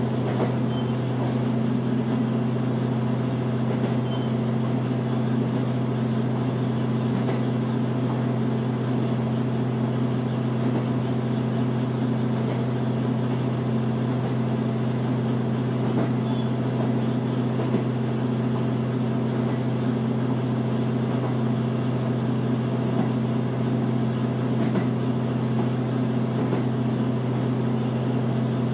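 JR Hokkaido H100 series diesel-electric railcar heard from on board while running, its diesel engine-generator droning at a steady, unchanging pitch with a few faint knocks.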